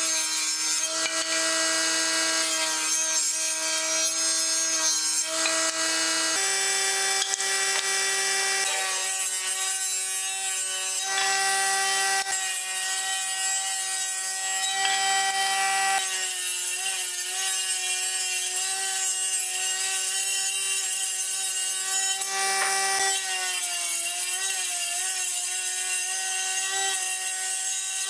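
Table saw running and ripping boards fed through its blade, a steady machine tone with cutting noise. The pitch shifts as each board is pushed through, and dips and wavers for a few seconds near the end as the blade takes the load.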